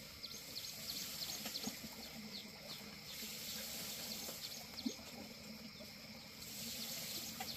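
Faint outdoor background with scattered short, high chirps.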